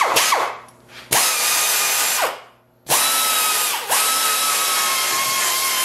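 A small handheld belt file sander cleaning rusty door steel back to bare metal before welding. It runs in bursts: a quick blip at the start, a run of about a second, a short pause, then a longer run from about three seconds in. Each run is a steady high whine with a hiss, winding up fast when triggered and dying away when released.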